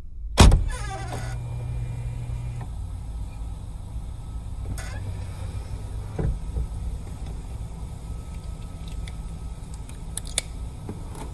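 A car trunk lid unlatching with a loud knock about half a second in, followed by a steady low hum. A few light clicks and knocks come later as cables and a clamp are handled.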